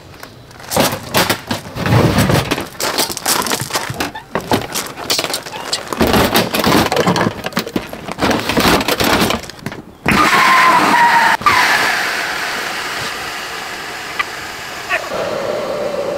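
Camping gear and a metal storage box being loaded into an SUV's trunk, with irregular knocking and clattering. About ten seconds in, this gives way to a steady rush of air with a falling whine and a click, which slowly fades: an air mattress's built-in electric pump letting the air out as the mattress is pressed down.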